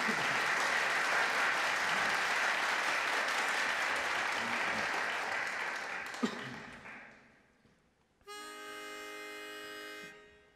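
Studio audience applauding, fading out about seven seconds in. Then a pitch pipe sounds one steady reedy note for about two seconds: the starting pitch for an a cappella group.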